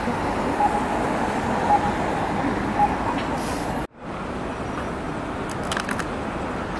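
City street traffic: a steady wash of passing cars and buses. It breaks off abruptly about four seconds in and picks up again as another stretch of traffic. Faint short tones repeat about once a second in the first part.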